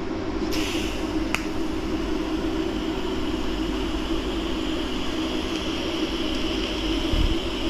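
TIG welding on stainless steel exhaust tubing with an Eastwood TIG 200: a steady arc hiss over the welder's hum. The hiss comes in about half a second in as the arc strikes, and there is one sharp click shortly after.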